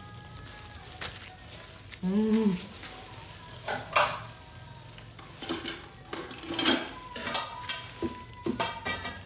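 Clear plastic bag crinkling and rustling in irregular sharp crackles as hands dig through a bag of fresh red chilies. A short hum of a voice comes about two seconds in.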